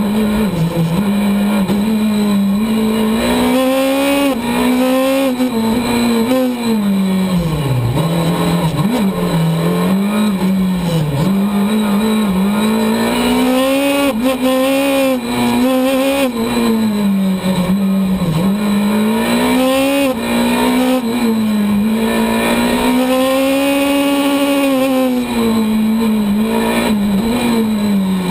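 Skoda Fabia S2000 rally car's two-litre four-cylinder engine heard from inside the cockpit at full stage pace. The revs climb and drop over and over as the car accelerates, shifts gear and brakes through a run of corners.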